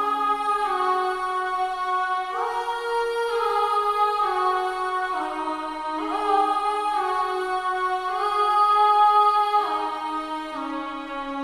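Sampled choir-like 'aah' pad playing slow sustained chords that move smoothly to a new chord about once a second.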